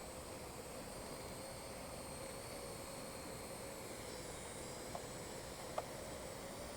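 Parrot AR.Drone 2.0 quadcopter's rotors running with a steady, fairly quiet hum and hiss, with two small clicks near the end.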